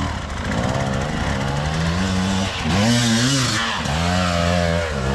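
Two-stroke enduro motorcycle engine revving under load on a steep climb, its pitch rising and falling repeatedly as the throttle is worked.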